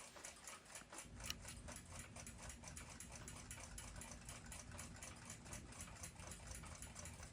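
Faint, quick, even ticking of a mechanical clock escapement, over a low steady hum.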